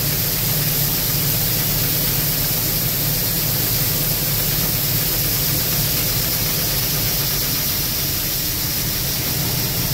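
Gleaner L2 combine running steadily with its unloading auger turning, emptying a small load of soybeans from the grain tank into a grain trailer, heard from the cab. A steady, even mechanical noise that holds level throughout.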